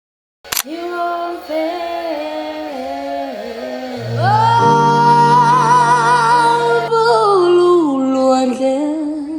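Background music with a woman singing over sustained keyboard chords; it starts about half a second in after a brief silence, and the singing grows louder with a long held note from about four seconds in.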